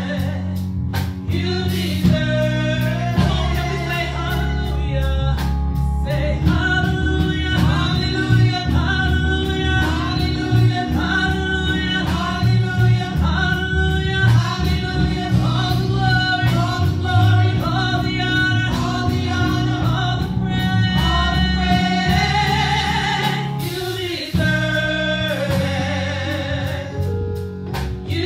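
A woman singing a gospel solo into a microphone over instrumental backing, with sustained low bass notes and a steady drum beat.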